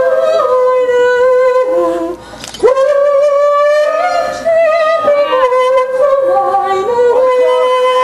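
A solo opera singer sings long held notes with vibrato. There is a short breath a little over two seconds in, then the voice swoops up into the next note.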